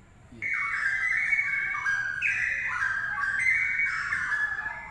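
Straw-headed bulbul (cucak rowo) singing: a continuous run of rich whistled warbling phrases that glide up and down, starting about half a second in.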